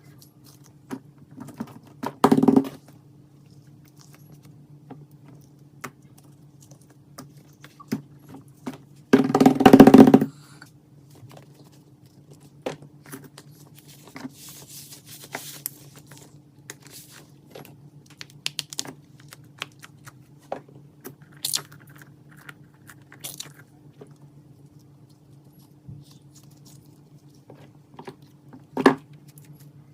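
Handling noises: scattered small clicks and rustles, with two louder crackling bursts about two seconds in and around nine to ten seconds, over a steady low hum.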